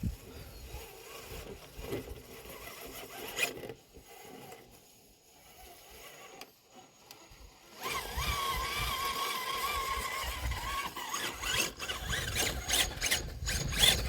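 Electric motor and gearbox of a radio-controlled rock crawler whining as it drives, the pitch wavering with the throttle. The whine starts about halfway through, after a quieter stretch with a few clicks.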